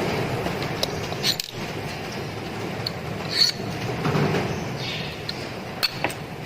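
Sharp metallic clicks and clinks of small parts and tools being handled while an angle grinder is worked on by hand, over a steady background hiss. There are about four clicks, the loudest a little after three seconds in.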